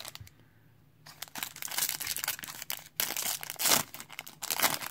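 Crinkly plastic wrapper of a 1991 Pro Set football card pack crinkling and being torn open by hand, starting about a second in, with sharp louder crackles near the end.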